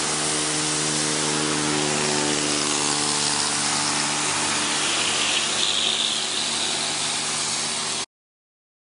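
A motor running steadily with a low hum under a loud rushing noise, cutting off suddenly about eight seconds in.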